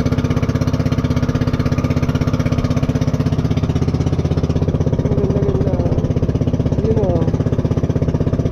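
Small engine of a motorized outrigger boat (bangka) running steadily under way, a loud, fast, even pulsing.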